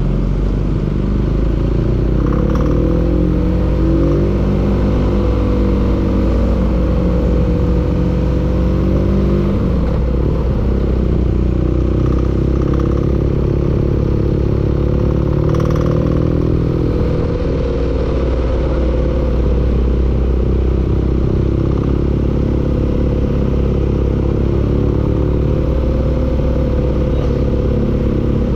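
An engine running with a knock, its speed wavering slowly up and down.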